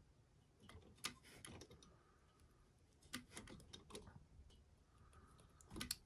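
Faint, scattered small clicks and creaks of a long-handled hand crimping tool being worked on a stainless steel turnbuckle fitting, crimping it onto 1/8-inch braided stainless cable. A slightly stronger click comes near the end.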